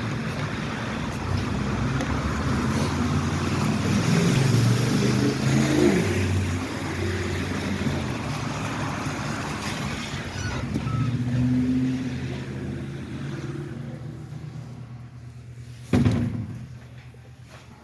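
A motor vehicle's engine and tyre hiss on a wet street, over steady rain noise. It swells and then fades. A sharp knock comes near the end, after which it goes much quieter.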